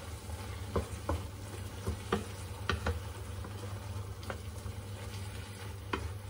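Wooden spatula stirring a sizzling tomato and spice mixture in a non-stick frying pan, with a light frying hiss and about ten short knocks and scrapes of the spatula against the pan.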